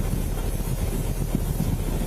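Steady low rumble: wind buffeting a body-worn camera's microphone over a running vehicle engine.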